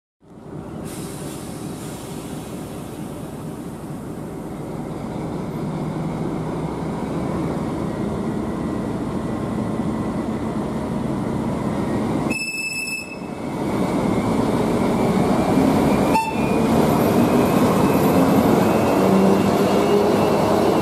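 Class 754 diesel locomotive running as it draws a passenger train into the station, growing louder as it comes close and passes. A faint, slowly rising high squeal joins over the second half, with a single sharp click about two-thirds of the way in.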